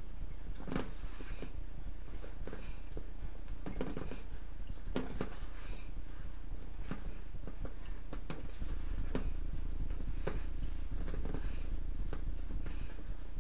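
Hands kneading and squeezing a cornstarch and condensed-milk dough in a bowl: irregular soft knocks and rubbing, over a steady low hum.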